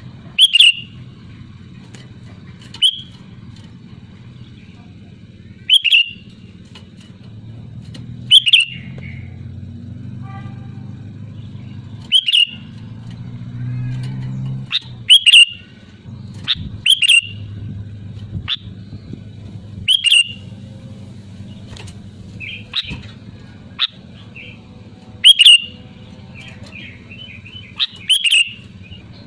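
Sooty-headed bulbul calling: short, loud, sharp notes repeated every two to three seconds, over a faint low hum.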